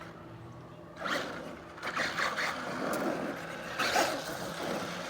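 Remote-control truck driving in several short bursts, its motor whirring and its tyres scraping over the ground.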